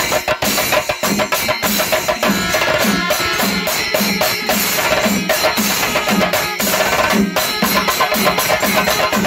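Kerala chenda drum ensemble (chenda melam) playing rapid strokes over a steady low beat about twice a second.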